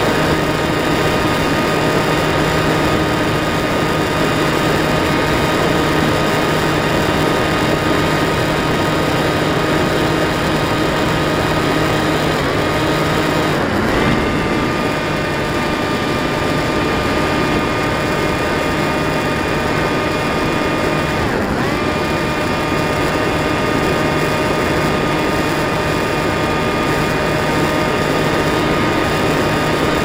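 Electric motor and propeller of a Bixler 2 RC plane whining steadily over rushing air noise. Twice the whine dips in pitch and comes straight back up, about halfway through and again a few seconds later.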